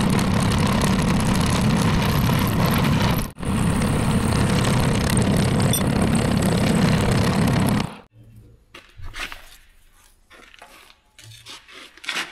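Portable line boring machine running steadily as its boring bar cuts out a steel pin bore, with a short break about three seconds in. It stops abruptly about eight seconds in, leaving only faint clicks and knocks.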